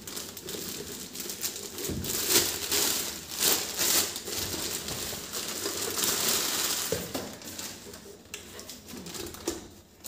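Clear plastic bag crinkling and rustling as hands pull it off a mixer grinder's motor base, in many quick crackles. It is loudest about two to four seconds in and dies down near the end.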